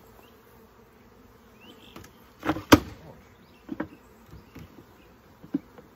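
Honeybees buzzing around an opened hive, with a few sharp wooden knocks from hive parts and the bee package being handled, the two loudest about two and a half seconds in.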